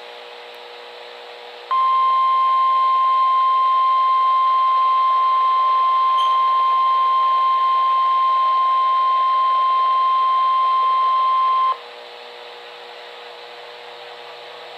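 NOAA Weather Radio warning alarm tone, a single steady high beep of about 1050 Hz. It starts about two seconds in, holds for about ten seconds and cuts off sharply, over steady radio hiss. This is the tone that switches on weather-alert receivers, sounded here for the weekly test.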